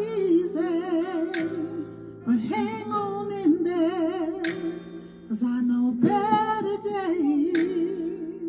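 A woman singing melodic runs with a wavering vibrato into a handheld microphone, over a backing track of held chords that change every couple of seconds.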